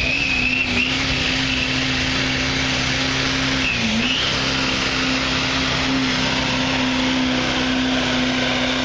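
Duramax diesel pickup engine held at high, steady revs under full load as the truck drags the pulling sled, with a high steady whine over the drone. The revs dip briefly and recover about four seconds in.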